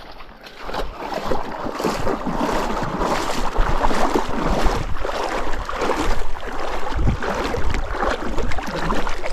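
Water sloshing and splashing around a hiker's legs as he wades into a knee-deep river crossing, over the steady rush of the current. The sound builds up within the first second and stays loud and irregular.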